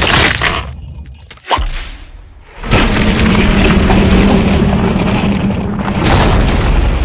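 Animated-film sound effects of a glacier cracking apart. A loud crackling of splitting ice dies away within the first second, then comes one sharp crack, and from about two and a half seconds in a heavy, sustained rumble of the ice giving way.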